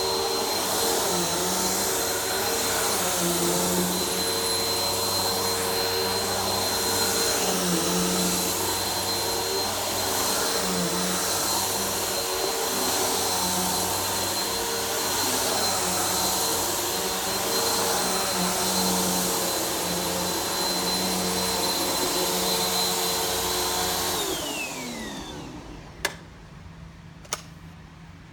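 Vacuum cleaner running steadily with a thin high whine, then switched off about 24 seconds in, its motor winding down in falling pitch. Two sharp clicks follow near the end.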